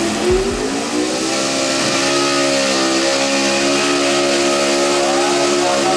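Gasoline stock pickup truck engine at a truck pull, revs rising in the first second and then held high and steady.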